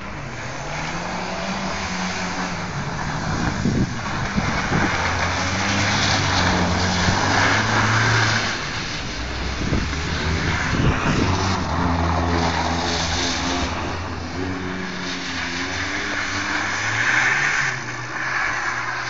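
Car drifting on a snowy road, its engine revving up and down several times as it slides, over a steady hiss from the wheels in the snow.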